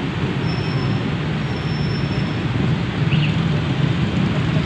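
Motor scooters and motorcycles riding slowly through floodwater: a steady mix of small engines running and water washing around the wheels.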